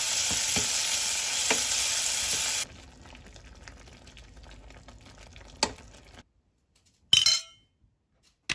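Tomato, onion and garlic sizzling in oil in a stainless steel pot, stirred with a wooden spatula that knocks against the pan a few times. After about two and a half seconds the sizzle cuts off and a much quieter stirring of noodles in broth follows, with one knock, then a brief clink near the end.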